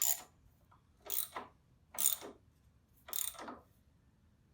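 Hand ratchet wrench clicking on a bolt of an ATV's rear shock mount, four strokes about a second apart.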